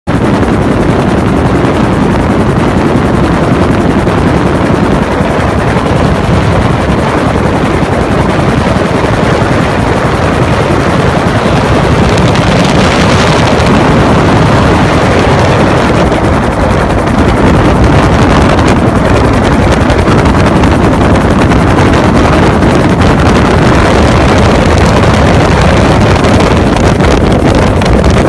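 Loud, steady helicopter noise heard from aboard, with wind buffeting the microphone.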